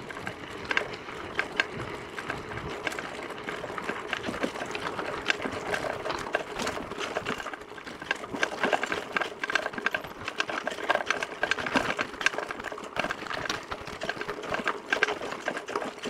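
Mountain bike clattering over a rough dirt track: a fast, steady run of small rattles and knocks from the bike and its tyres jolting over the ground.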